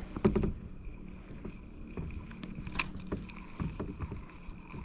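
A few light knocks and clicks from a plastic fishing kayak and its gear being handled, with a low background of water and rustle.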